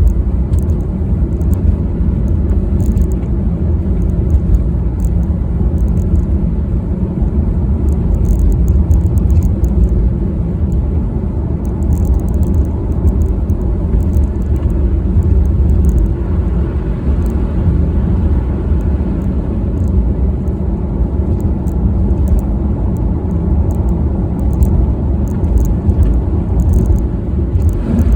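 Car driving on a snowy road, a steady low rumble of engine and tyre noise heard from inside the cabin, with faint scattered crackles over it.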